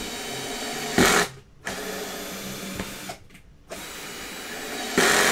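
Small cordless drill-driver running in several short bursts with brief pauses. It is driving a self-tapping screw up through the frame into the canvas stretcher: in, backed off, then in again to pull the canvas down into the frame.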